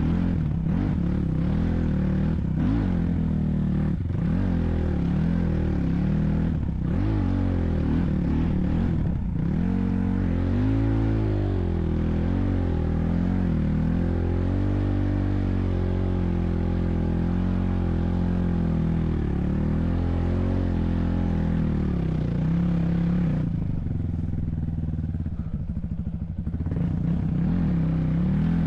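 Vehicle engine running steadily, its pitch rising and falling with the throttle as it drives, and easing off briefly about three-quarters of the way through.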